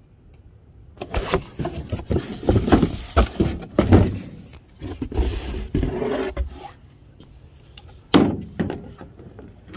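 Cardboard parts box being handled and opened, with a run of scraping, rubbing and knocks as a new plastic coolant reservoir is pulled out of it, then one sharper bump about eight seconds in.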